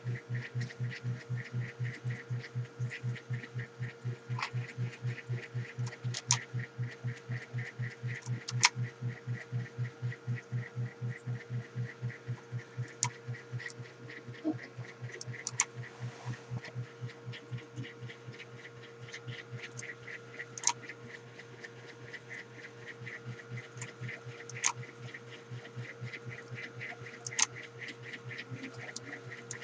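Keys of a Wellrui V802 keyboard being tapped in a rapid, even rhythm, about three clicks a second, with a sharper, louder key click every few seconds. A steady electrical hum runs underneath.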